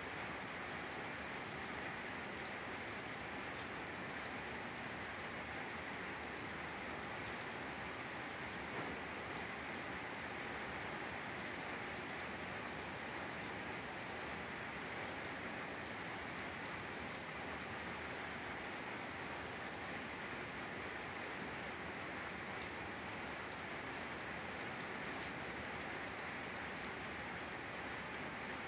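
Steady rain falling on a grassy yard, an even hiss without breaks.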